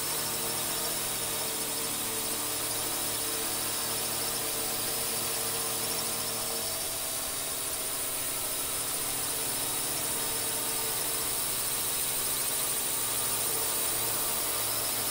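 Steady whine of a small drone's electric motors and propellers, with a high hiss, holding at the same pitch throughout.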